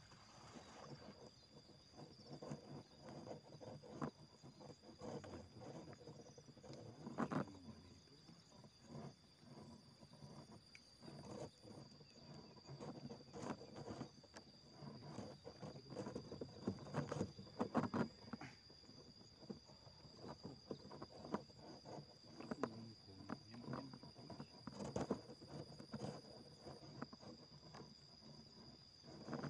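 Faint outdoor ambience: a steady high-pitched insect call, with irregular soft rustles and knocks scattered throughout.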